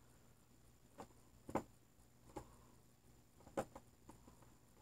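Faint, irregular clicks and taps of a screwdriver and the small screws of a cord clamp against a plastic plug housing, as the clamp screws are being started.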